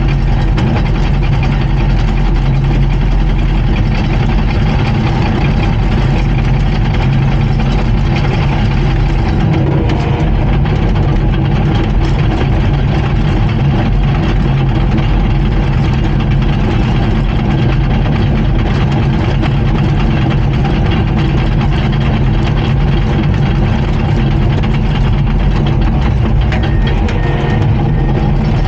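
Komatsu D39PX bulldozer's diesel engine running steadily at a constant speed.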